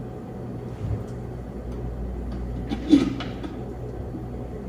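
A short, sharp knock about three seconds in, with a softer bump about a second in, over a steady low hum.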